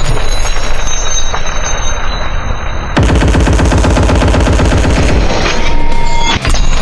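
Loud, rapid continuous gunfire like an automatic weapon, the shots coming in a fast even stream from about three seconds in.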